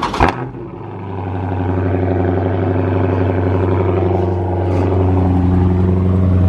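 A Dodge Charger Scat Pack's 392 Hemi V8 idling with a steady low hum that builds up over the first second or two. Two sharp clicks come at the very start.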